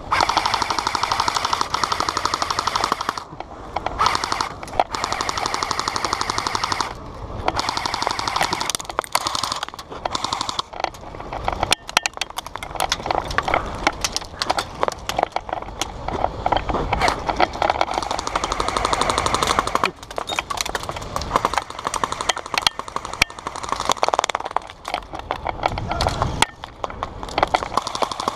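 AK-style airsoft rifle firing long full-auto bursts: a fast rattle of shots, broken by brief pauses, with more bursts and scattered shots after.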